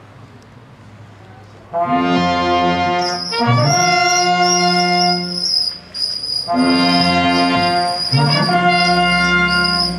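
Brass band playing slow music in long held chords, starting about two seconds in, with short breaks between phrases.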